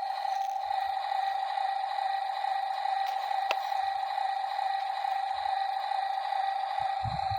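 Small electric gear motor of a radio-controlled toy construction vehicle running with a steady high whine, with a single click about three and a half seconds in.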